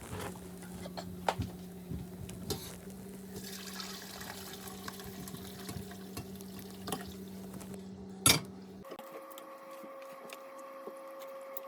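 Ginger and lemon tea trickling and dripping through a strainer, with light clinks of kitchen utensils and one sharp knock about eight seconds in. A faint steady hum runs underneath and changes pitch abruptly near nine seconds.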